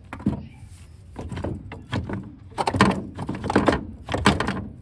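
Irregular metal clunks and scrapes, about six in a few seconds, from car suspension parts being forced and knocked while a tight front strut assembly is worked out of the wheel well.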